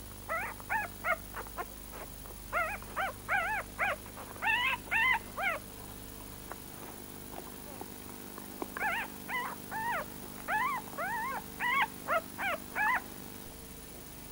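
Newborn puppies whimpering and squeaking: many short, high cries that each rise and fall in pitch. They come in two bouts with a pause of about three seconds between them.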